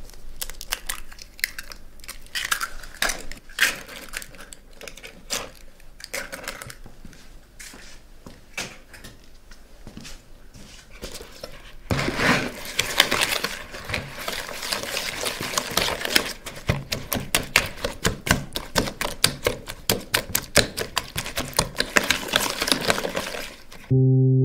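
Eggs being beaten in a bowl: a utensil clicks against the bowl, sparsely at first, then from about halfway as a steady, rapid tapping at about three strokes a second. Just before the end a deep ringing tone starts and holds, louder than the tapping.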